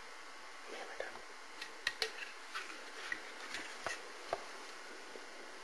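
Faint, scattered light clicks and knocks, about a dozen over a few seconds, against quiet room tone.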